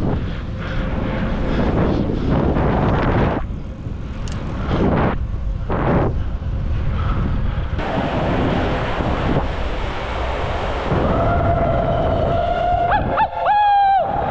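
Wind buffeting the microphone of a camera carried on a moving bicycle, a steady rushing noise. In the last few seconds a high, steady whine with overtones comes in, wavering and sliding briefly just before the end.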